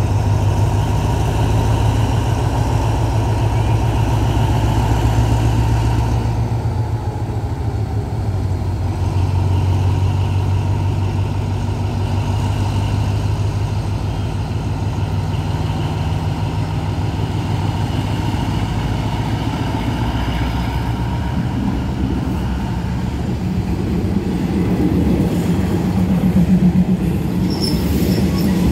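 Diesel locomotive engine running with a steady low drone as it hauls passenger coaches slowly out. Near the end a diesel railcar train comes past close by, its running rumble rising, with a brief high wheel squeal.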